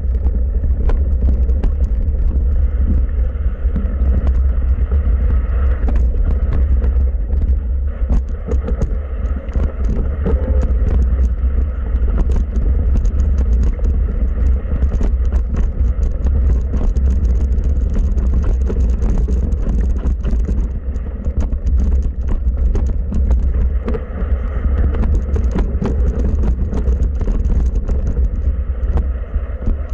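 Mountain bike riding fast down a rough dirt trail, heard from a bike-borne camera: a steady heavy rumble of wind and ground vibration on the microphone, with constant clicking and rattling as the bike bounces over roots and rocks.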